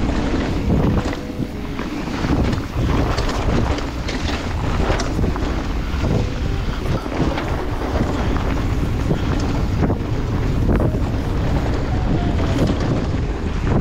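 Wind rushing over the microphone as a mountain bike rides down a dirt trail, with tyre rumble and frequent clicks and knocks from the bike over rough ground.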